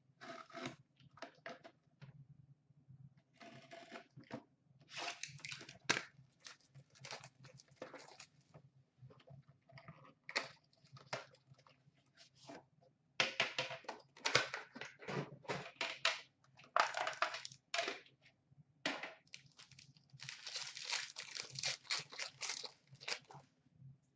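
Sealed Upper Deck Premier hockey card box being torn open and handled: irregular crinkling and tearing of its plastic wrap and cardboard, with scattered taps and clicks, heaviest in stretches a few seconds long.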